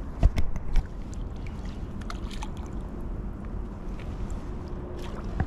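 Steady rush of river water, mixed with wind on the microphone, with a few sharp knocks in the first second.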